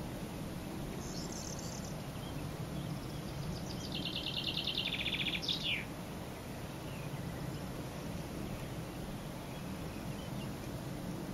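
Corn bunting singing once: a few soft ticks that speed up into a dry, jangling trill and end in a quick falling flourish, lasting about three seconds, about midway through.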